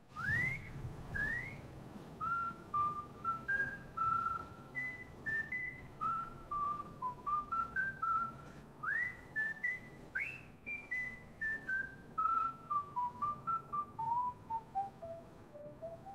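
Someone whistling a slow tune in single clear notes. A few phrases open with a quick upward swoop, and the tune steps down in a long descent near the end.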